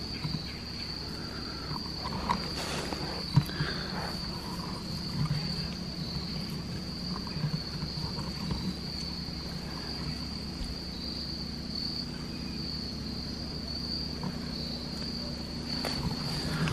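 Steady chorus of insects, a continuous high trill that does not change, with a few faint knocks and rustles, the clearest about two and three seconds in.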